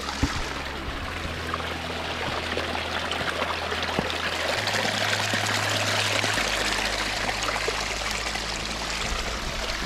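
Running water of a small creek, a steady rushing trickle that swells slightly in the middle.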